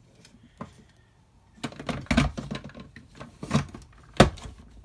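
Plastic knocks and clatter as a Dyson V7 cordless stick vacuum is worked down into its wall-mounted charging dock, ending in a sharp click about four seconds in as it seats and locks in place.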